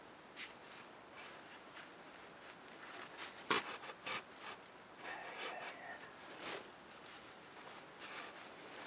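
Light metal scraping and small clicks of a hand tool being turned by hand in a bolt hole in the front of an Isuzu C240 diesel block, with two sharper clicks a little past a third of the way in.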